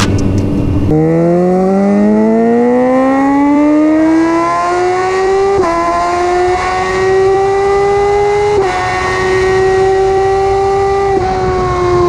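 Suzuki GSX-R1000 K8 inline-four through a decatted Cobra dual exhaust, accelerating hard with the pitch climbing, broken by two quick upshifts on the quickshifter about five and a half and eight and a half seconds in; near the end the throttle closes and the pitch falls. Music ends about a second in.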